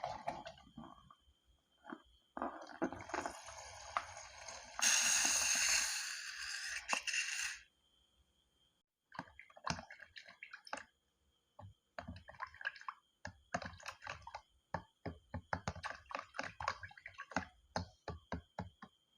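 Slime being squished and mixed, many short wet clicks and squelches in quick irregular runs. Before that comes a steady hiss lasting about five seconds, which grows louder partway through.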